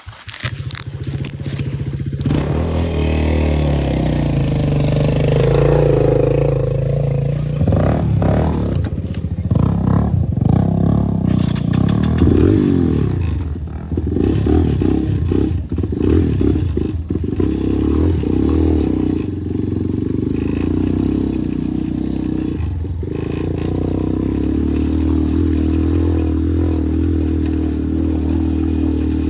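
Motorcycle engine running and revving as the bike rides, its pitch rising and falling several times, with scraping and clattering along the way.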